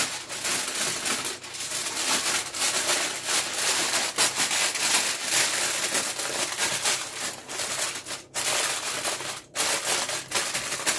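Aluminium foil crinkling and crackling almost without pause as hands fold and scrunch it tightly into a parcel, with a couple of brief lulls near the end.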